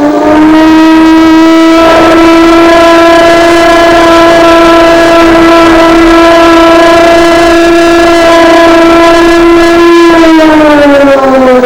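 Emergency-alert civil-defence siren, deafeningly loud and distorted: it glides up to a steady wailing tone, holds it for about ten seconds, then begins to wind down near the end.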